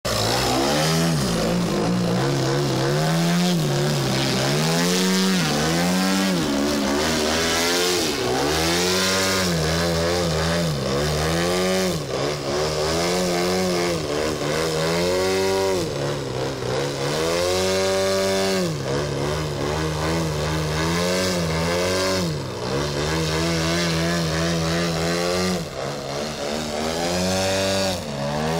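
DLE 111 twin-cylinder two-stroke petrol engine and propeller of a 2.7 m Yak 54 RC aerobatic plane, running loud with its pitch rising and falling every second or two as the throttle is worked to hold the plane hanging on its propeller.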